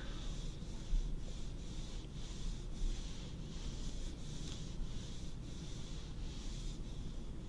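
Hands rubbing and brushing over fabric close to a binaural microphone in steady, even strokes, about two a second: a mimed shoulder massage. A light knock about a second in is the loudest moment.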